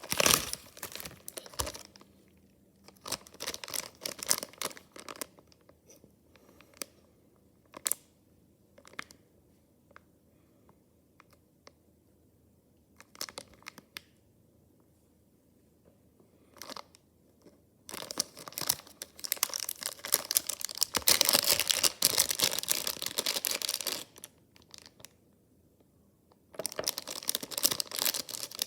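Packaging being torn and crinkled by hand during an unboxing, in irregular bursts with scattered clicks and quiet pauses. The longest, densest crinkling comes about two-thirds of the way through.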